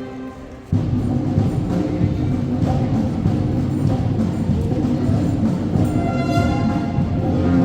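Sierra Mixe philharmonic wind band playing. A held chord dies away, then less than a second in the full band comes back in loudly with heavy percussion and low brass. Sustained horn notes return near the end.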